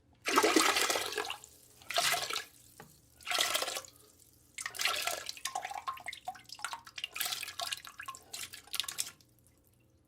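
Chunky vomit gushing and splashing into the water of a toilet bowl. It comes in waves: a loud first gush, two shorter ones, then a long run of quicker splashes and spatters.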